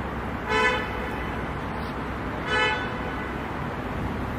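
A vehicle horn gives two short toots about two seconds apart, over steady street noise.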